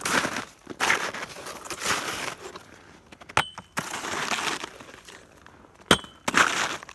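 Footsteps crunching through snow, one step about every second, softer in the middle, with two sharp clicks that ring briefly.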